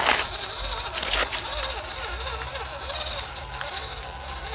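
Radio-controlled scale crawler trucks driving slowly over gravel and rubble, their small electric motors running and tyres grinding on the stones. There is a loud burst of noise right at the start and another about a second in.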